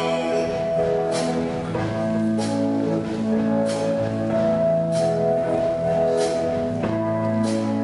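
Instrumental break in a song, no singing: sustained chords with a sharp beat about every second and a quarter.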